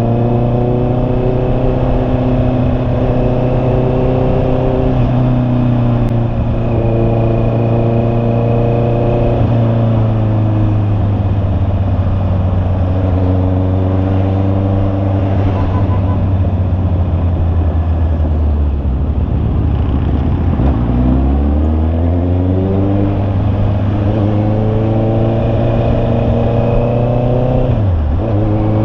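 Honda CB650R's inline-four engine running under way, held at fairly steady revs for long stretches. About two-thirds of the way through the revs fall away and then climb again, and near the end they dip sharply and quickly recover.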